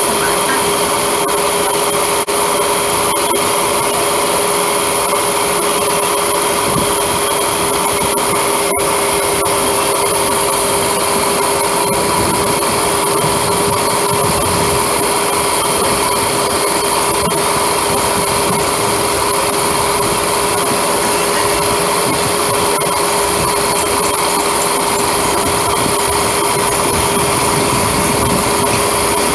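Steady electrical whine and rumble of an EMU local train rolling slowly. Several fixed, unchanging tones sit over a noisy rumble.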